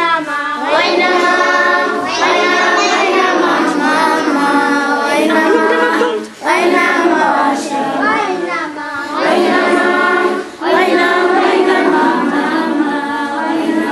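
A group of school children singing together as a choir, in sung phrases broken by two brief pauses, about six and ten and a half seconds in.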